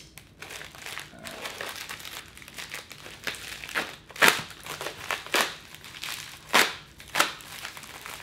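White plastic FedEx Pak mailer crinkling and rustling as it is opened and handled, with several sharper, louder crinkles in the second half.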